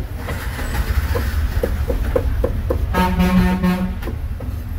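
A vehicle horn sounds once, a steady pitched honk about a second long, just past the middle, over a steady low rumble.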